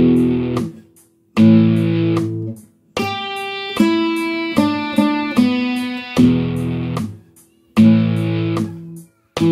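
Guitar playing a slow rock riff: two-note power chords on the low strings, each cut short with a gap before the next, and a run of single higher notes in the middle. A drum backing track with a steady hi-hat plays along.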